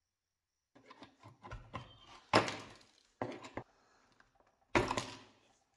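Small metal pry tool worked against an old wooden speaker cabinet to lever out a metal fastener: scraping and creaking, broken by three loud sharp cracks, the first about two and a half seconds in, the next just after three seconds and the last near the end.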